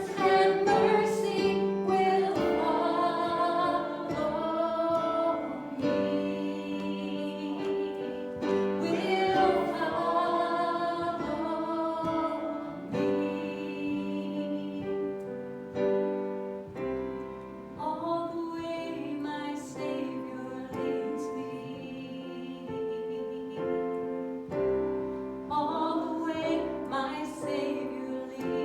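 Singing with instrumental accompaniment: a slow song with long held notes.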